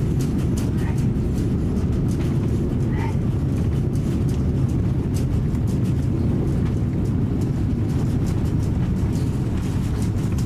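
Steady low rumble inside the cabin of an Airbus A330-300 airliner moving along the airport surface, with faint light ticks and rattles over it.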